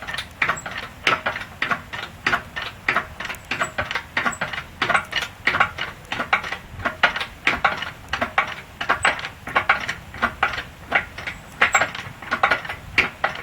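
Irregular clatter of short clanks and scrapes, about two or three a second, as a heavy engine block is shifted over wooden boards laid on dirt.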